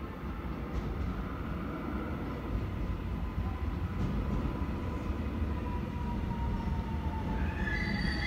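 Seoul Subway Line 1 electric train running on the track: a steady low rumble with a faint whine slowly falling in pitch. Near the end, high-pitched wheel squeal sets in.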